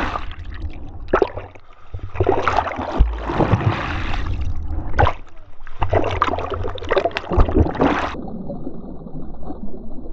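Seawater splashing and gurgling in irregular surges around a camera bobbing at the surface in waves. Near the end the splashing turns muffled as the camera goes under.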